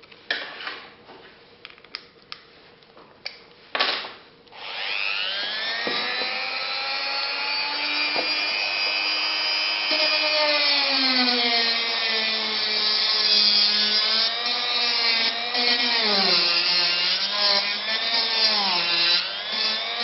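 Clicks and handling noise as a grinding stone is fitted to a handheld rotary tool. About four and a half seconds in, the motor starts and whines up to speed at a slow speed setting. From about ten seconds its pitch sags and wavers again and again as the stone grinds into light modelling foam.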